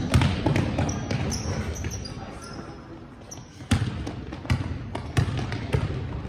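Basketball bouncing on a sports-hall court during play, a run of knocks with a sharp thud about three and a half seconds in. Sneakers squeak in short high chirps in the first couple of seconds.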